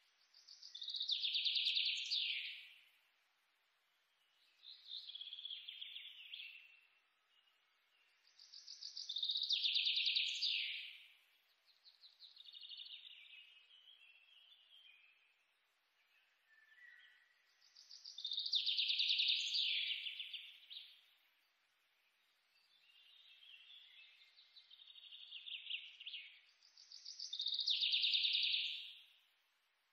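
Bird song: high, trilled phrases about two seconds long, the loudest recurring roughly every nine seconds, with quieter chirping phrases between them.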